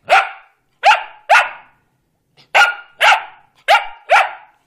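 Dog barking seven times: one bark, then three quick pairs of short, sharp barks.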